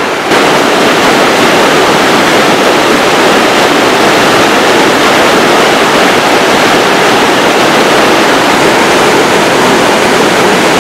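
Mountain river rushing over boulders: a loud, steady rush of white water.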